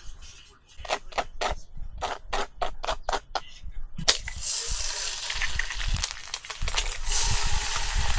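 A quick series of sharp clicks and taps, then about four seconds in, loud sizzling starts suddenly as food goes into a hot, oiled pan and keeps frying.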